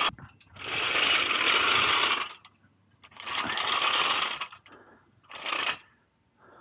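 Steel motorcycle lift being pushed along asphalt on its casters, a gritty metal rattle in three runs: two long ones and a short one near the end.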